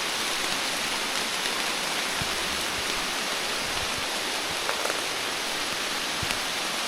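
Steady rain falling, an even hiss, with a few faint taps.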